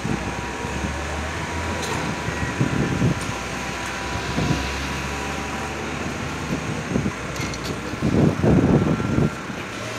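City street noise with a heavy vehicle engine humming steadily. Louder, rougher rumbles come in around eight seconds in.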